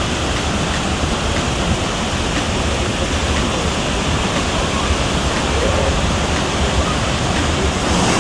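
Athabasca Falls, a large waterfall on the Athabasca River: a loud, steady rush of falling water.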